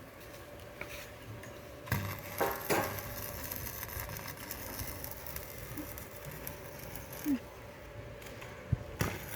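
Electric arc welder laying tack welds, an irregular crackling sizzle of the arc that starts about two seconds in.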